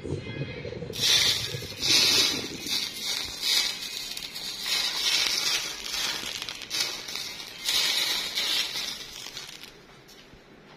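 Hissing, crackling noise that rises and falls in uneven surges about a second apart, dying away near the end.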